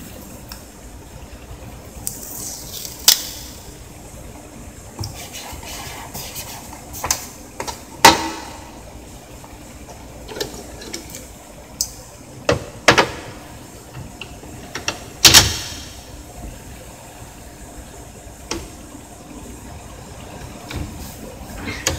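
Hard plastic clicks and knocks, a dozen or so scattered and irregular, as an ink cartridge is handled and pressed into the plastic print-head carriage of a Canon iP2770 inkjet printer. The two loudest come about 8 and 15 seconds in.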